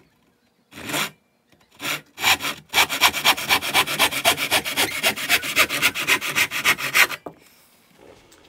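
Handsaw cutting through a clamped 1x6 pine board: a few slow starting strokes, then fast, even back-and-forth strokes for about four seconds. The sawing stops suddenly about seven seconds in as the cut goes through and the offcut falls away.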